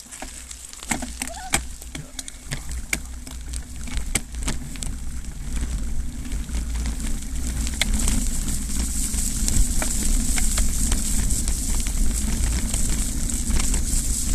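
Bicycle riding along a gravel and dirt forest track: tyres crunching over the stones with scattered clicks and rattles, and wind buffeting the microphone. The noise builds from about six seconds in as the bike picks up speed.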